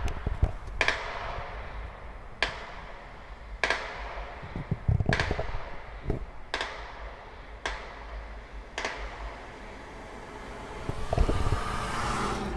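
Distant gunfire from a shooting range: about seven single shots roughly a second to a second and a half apart, each trailing off in an echo, over a steady low rumble. A rushing noise swells near the end.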